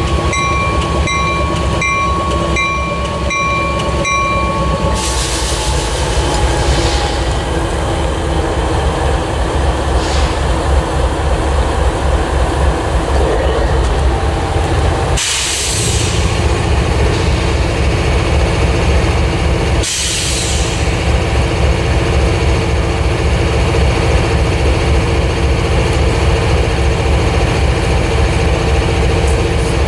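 CSX diesel-electric locomotive's engine running with a heavy, pulsing rumble. A repeated high ringing tone sounds for the first four seconds, a steady tone then slides down in pitch, and short bursts of hissing come about five, fifteen and twenty seconds in.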